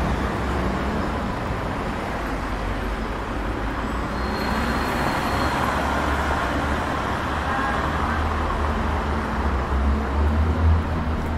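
Street traffic: steady road noise of passing cars, with a deeper engine rumble swelling near the end.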